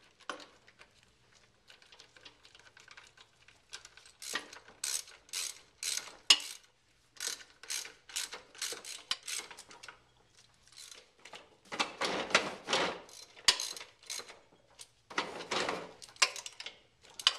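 Ratchet wrench clicking in four quick runs as the bolts on a lawnmower's differential casing are tightened down.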